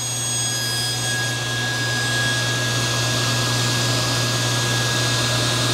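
SawStop table saw running with its overhead dust-collection hose drawing air: a steady hum with a thin high whine and a rush of air, getting a little louder over the first second or so.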